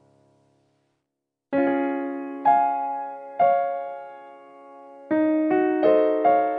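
Background music played on a keyboard: after a brief silence, single notes are struck slowly, then a quicker run of notes near the end.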